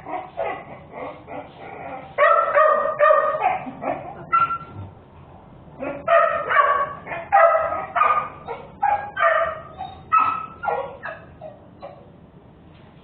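A dog barking repeatedly in short runs of loud barks, with brief pauses between runs; the barking dies down near the end.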